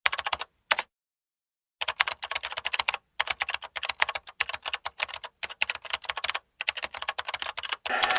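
Computer keyboard typing: rapid clicks of the keys in quick runs, broken by short pauses.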